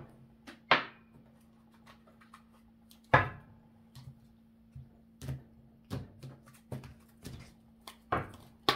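Tarot cards being handled, laid down and tapped on a cloth-covered table: a series of separate soft slaps and clicks at uneven intervals, the loudest about three seconds in. A faint steady hum lies underneath.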